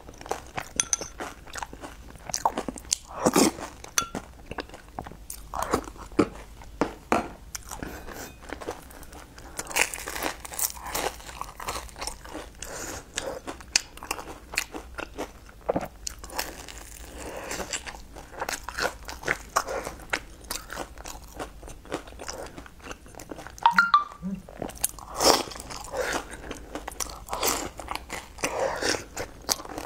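Close-up eating sounds of a person biting into and chewing a thick fried cookie, with irregular crunches throughout.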